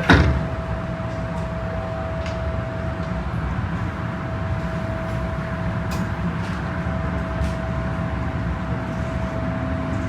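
Inside an MTR M-Train carriage: a sharp thump at the start, likely the doors shutting, then the steady rumble and electrical hum of the train. Near the end a faint rising whine begins, as of traction motors starting to pull.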